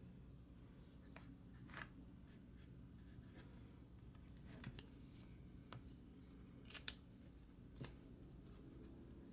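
Faint handling of a disc-bound paper planner: a hand and pen brushing and tapping on the pages, with scattered small clicks, the loudest a quick pair about seven seconds in, over a low steady room hum.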